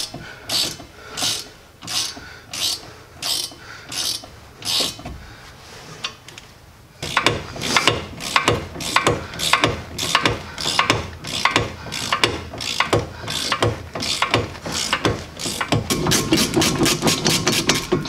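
Hand ratchet wrench clicking in repeated back-swings on a rear brake's 13 mm caliper bracket bolts as they are loosened. Slow, even strokes about one and a half a second, a short lull, then quicker, denser ratcheting from about seven seconds in.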